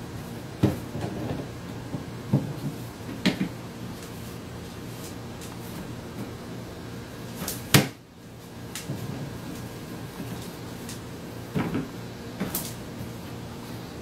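Hinged plastic lid of a pet-food storage bin knocking and clacking as a scarlet macaw pries at it with its beak. There are several irregular knocks, the loudest a sharp clack about halfway through.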